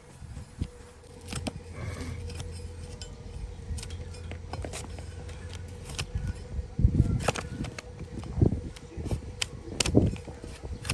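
Hoof-trimming tools working on a donkey's hoof: irregular sharp clicks and scrapes of blade on hard hoof horn, with a few heavier thumps after about seven seconds.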